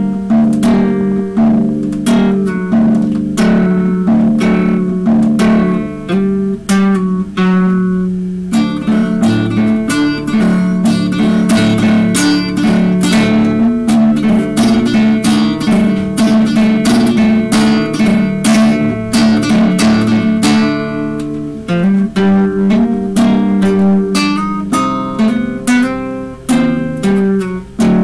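Acoustic guitar being strummed, a run of chords that gets busier for a stretch in the middle.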